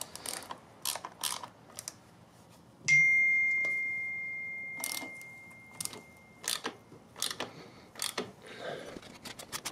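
Hand tools worked while a new cam bearing is drawn into an engine case with a threaded bearing-installer tool: scattered metal clicks and knocks, one clear metallic ring about three seconds in that dies away slowly, and fast ratchet clicking starting near the end.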